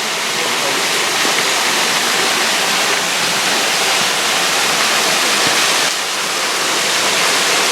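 Waterfall splashing: a loud, steady rush of falling water close by.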